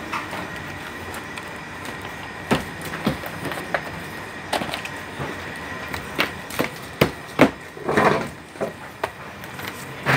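Cardboard and gold-foil perfume boxes being handled by hand on a worktable: scattered light knocks and taps, with a short rasping burst about eight seconds in. Steady room noise with a faint high whine runs underneath.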